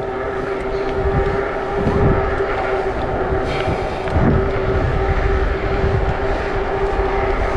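A steady mechanical hum holding one pitch, over a low, uneven rumble of wind on the microphone.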